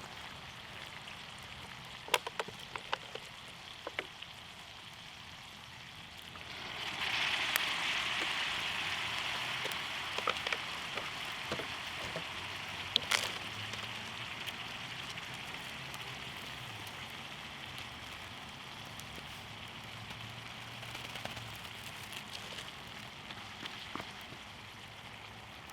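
Ground beef sizzling in a small pan over a campfire, with a few sharp crackles early on. About six and a half seconds in, the sizzle suddenly turns much louder, as when water hits the hot pan, and then slowly dies back down.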